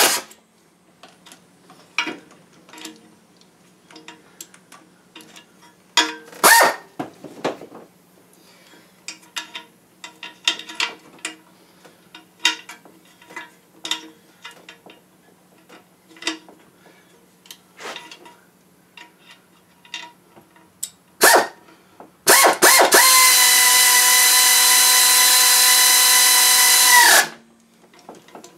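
Power drill spinning in bolts: a short burst about six seconds in, another brief one later, then a steady run of about five seconds near the end that winds down and stops. In between, light clicks and clinks of tools and bolts being handled.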